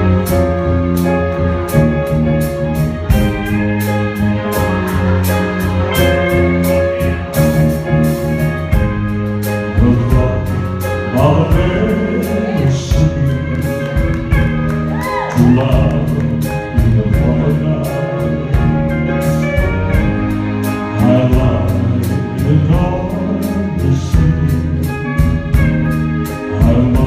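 Live band playing a slow ballad: held chords over a steady beat with regular cymbal ticks. A voice starts singing about eleven seconds in.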